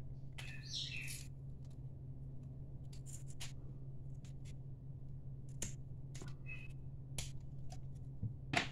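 Hands working apart a frozen two-part Blue Stuff mould holding Milliput casts: scattered small clicks and taps, with a short scrape about half a second in, over a steady low hum.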